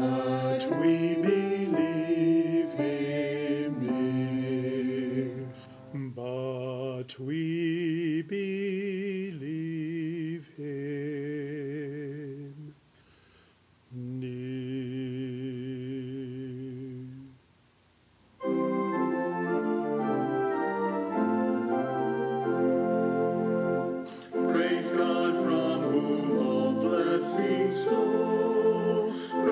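Organ music: slow held notes and chords, the middle stretch wavering with vibrato, broken by two short pauses, then fuller chords from about eighteen seconds in.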